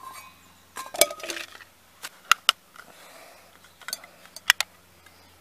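Metal camp cookware being handled: a series of sharp metallic clinks and knocks, about seven in all, with two close together near the middle and two more close together late on.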